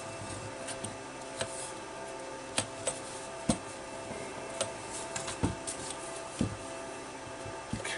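Light clicks and knocks of a sheet-metal DVD player chassis and its disc-loading mechanism being handled and fitted together, with a few sharper knocks scattered through.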